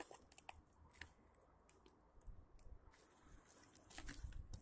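Near silence with faint, scattered clicks and crunches of quiet footsteps on gritty concrete and rubble, a little busier about four seconds in.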